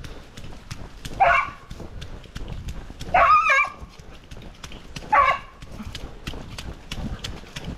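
A dog barking three times, the middle bark longer with a wavering pitch, over a steady patter of footsteps.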